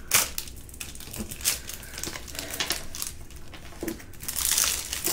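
Clear plastic film over a diamond painting canvas crinkling and rustling under hands pressing and smoothing it, to flatten a canvas bent in the post. Irregular crackles, growing louder about four seconds in.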